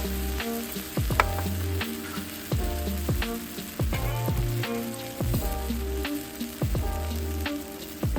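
Background music with a bass line, a simple melody and a steady beat, over the even sizzle of food frying in a hot pan.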